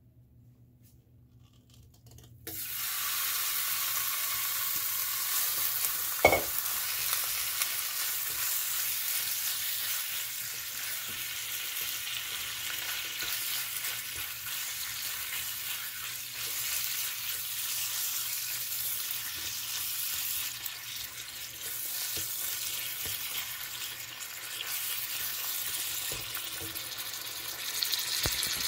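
Sliced raw beef hitting hot oil in an electric wok, starting suddenly about two and a half seconds in and then sizzling steadily as it is stirred with a plastic spoon. There is one sharp knock of the spoon against the pan a few seconds after the sizzle starts.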